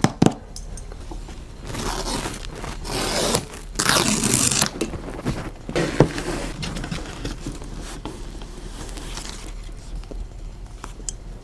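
MacBook Air packaging being torn and scraped open by hand: several bursts of tearing and rustling, with a sharp click about six seconds in.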